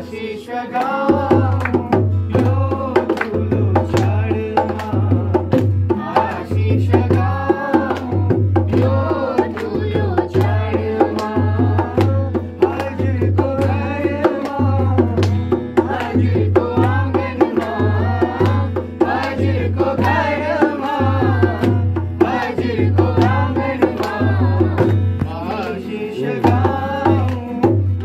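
People singing a Nepali folk song to a madal hand drum, whose deep bass strokes and sharp slaps keep a steady beat.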